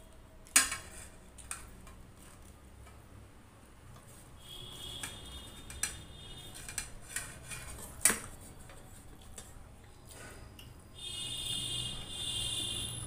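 Stainless-steel bowl and plate clinking and scraping as rice is tipped from the bowl onto the plate and worked by hand. A sharp clink about half a second in is the loudest, with more clinks through the middle and a longer ringing scrape near the end.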